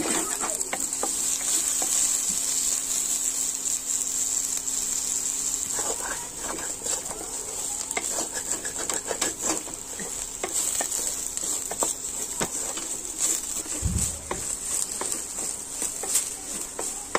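Soya chunks sizzling as they fry in hot oil in a kadhai, with a steady hiss and the clicks and scrapes of a wooden spatula stirring them. One brief low thump comes late on.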